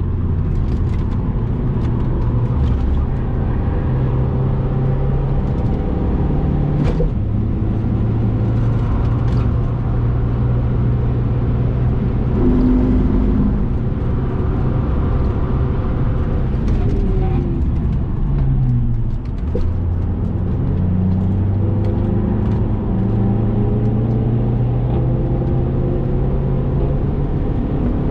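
Diesel Saab's engine running hard on track, its note shifting in steps with gear changes. It dips briefly about nineteen seconds in, then climbs again under acceleration.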